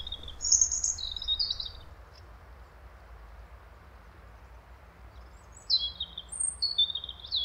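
Woodland songbirds singing: a burst of quick high chirping phrases about a second in, a quiet stretch, then more song near the end, over a steady low background rumble.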